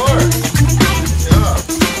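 Upbeat background music with a steady beat and a repeating bass line.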